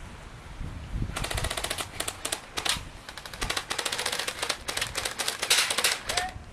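Airsoft electric guns firing on full auto: rapid strings of clicking shots in repeated bursts over about five seconds.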